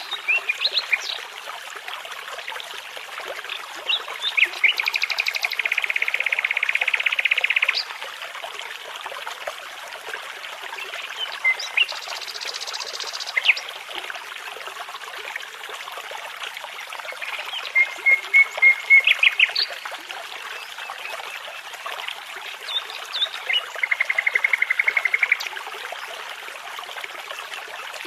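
Nightingale singing in separate phrases of fast trills and runs of loud repeated notes, with pauses between phrases, over a brook babbling steadily.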